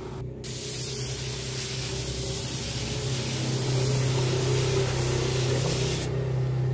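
Air spray gun hissing steadily as it lays clear coat over black-painted motorcycle body panels. The hiss starts about half a second in and cuts off sharply near the end, over a steady low hum.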